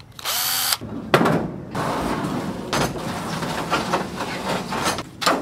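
A cordless impact driver whirs briefly, its motor spinning up, followed by about four seconds of dense, rough working noise.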